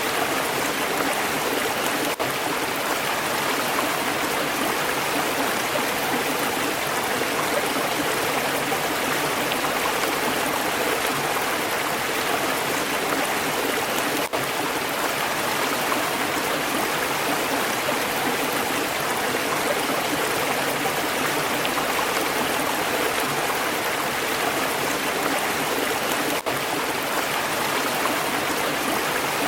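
Stream water flowing steadily over rocks, a continuous rushing and gurgling, with a very brief dip in level about every twelve seconds.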